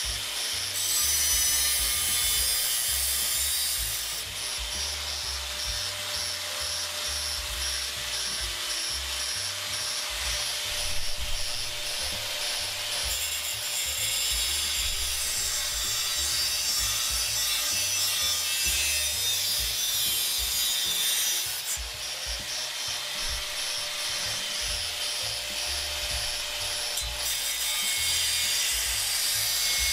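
Angle grinder with a cutoff wheel cutting through a sheet-metal motorcycle rear fender, a steady grinding hiss that gets louder and softer in stretches as the wheel bites into the cut.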